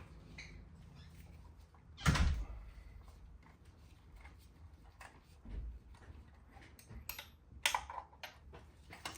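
A single heavy thump about two seconds in, then a few sharp clicks and knocks near the end, over a low background.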